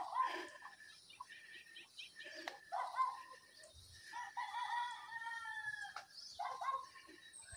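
A rooster crowing: one long crow about four to six seconds in, with shorter calls before and after it.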